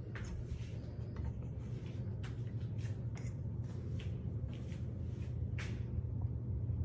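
Light clicks and rubbing sounds from cabinet doors and the camera being handled, about seven in all, over a steady low room hum.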